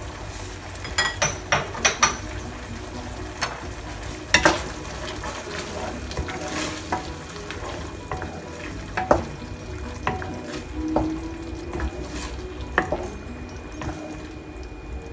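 Wooden spatula stirring and scraping a simmering coconut-cream and ground-pork mixture in a nonstick frying pan. Irregular knocks and taps against the pan sound over a steady bubbling sizzle.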